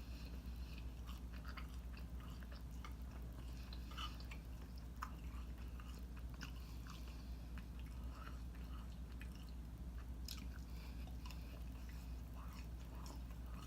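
A person chewing a mouthful of mandarin orange chicken and rice close to the microphone: soft, scattered wet mouth clicks and smacks, over a steady low hum.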